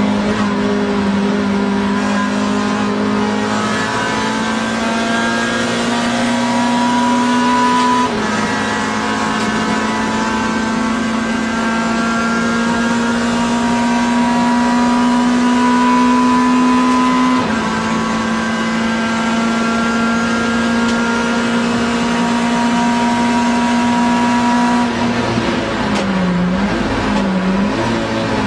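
Racing car engine heard from inside the cockpit, pulling hard down a straight. The pitch climbs slowly and drops at two upshifts, about 8 and 17 seconds in, then dips and rises several times near the end as the driver brakes and downshifts with throttle blips.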